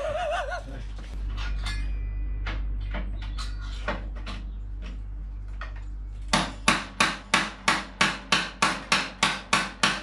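Hammering during a bike repair: an even run of sharp blows, about three a second, starting about six seconds in, after a stretch of light scattered clicks of tool work.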